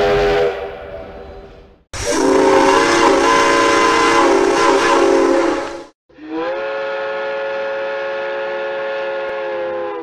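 Steam locomotive whistles sounding one after another, each a chord of several notes held steady. First the end of one blast fades out. Then a loud four-second blast with a strong steam hiss follows, and then another four-second blast that bends slightly up in pitch as it opens.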